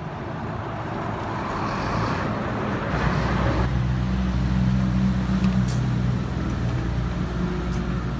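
Motor-vehicle traffic: road noise swells and fades over the first few seconds, then a low engine hum runs steadily.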